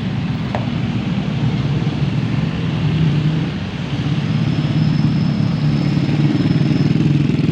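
Bus engine running close by with a steady low drone, growing a little louder over the last few seconds.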